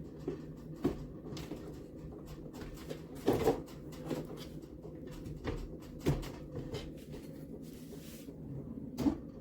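Console table's drawer and frame being handled: a handful of scattered light knocks and clunks, the loudest a short cluster about three seconds in, over a steady low hum.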